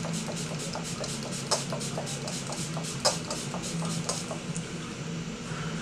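Pump-mist bottle of MAC Fix+ setting spray pumped rapidly at the face, a quick run of short misting spritzes at about four a second that stops about four and a half seconds in. A steady low hum runs underneath.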